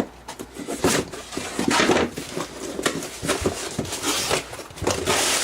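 A package being opened by hand and its contents pulled out: an irregular string of rustles, scrapes and light knocks of packaging being handled.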